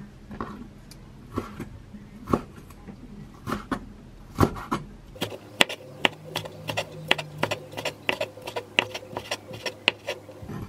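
Chef's knife chopping Korean wild chives (dallae) on a wooden cutting board. A few scattered knocks come first as the bundle is handled, then quick, even chopping strokes at about five a second from about halfway through.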